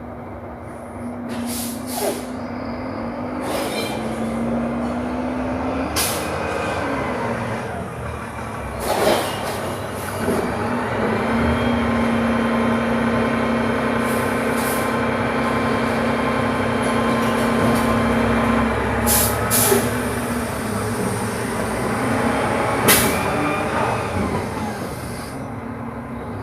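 Recycling truck at work: its engine running under a steady machine whine that rises and then holds for several seconds, broken by a series of sharp clanks and bangs and short hisses of air.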